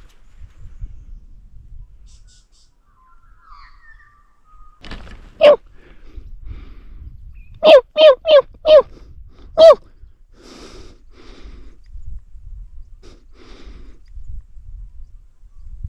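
Six short, loud animal calls: one, then four in quick succession, then one more, over faint rustling.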